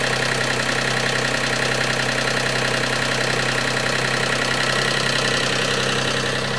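Combustion engine of a home cogeneration generator unit running steadily with no load and no soundproofing, heard close up. It gives an even, loud, unchanging drone.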